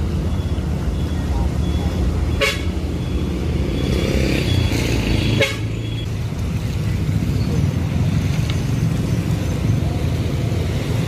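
Steady rumble of motor traffic on a busy road, with a vehicle horn tooting and two sharp knocks about two and a half and five and a half seconds in.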